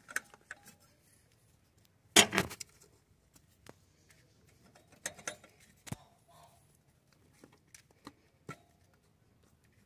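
Hands fitting a rubber clutch-fork dust boot onto a gearbox housing: scattered faint clicks and knocks of handling, the loudest a short rustling knock about two seconds in.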